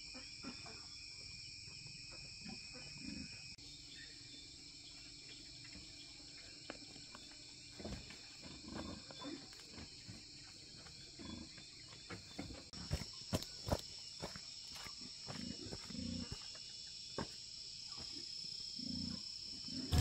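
A steady high chorus of insects, with scattered soft knocks and a cluster of sharper clicks about two-thirds of the way through.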